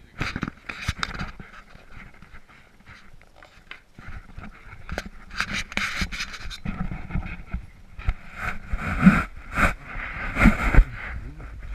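Close handling noise from an action camera being moved about: rubbing and knocks right at the microphone, with irregular short breath-like rushes of air, busier in the second half.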